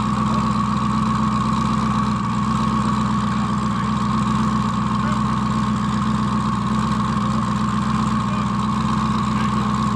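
Twin-turbo Dodge Demon's V8 running steadily with no revving: an even low rumble with a steady higher tone on top.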